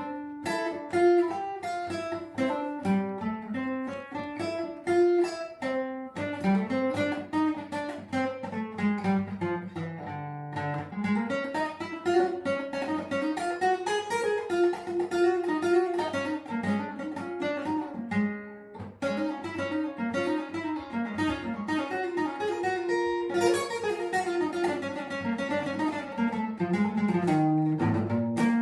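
Acoustic guitar being played: quick plucked notes with a melody and a lower line moving beneath it, with a brief pause about two thirds of the way through.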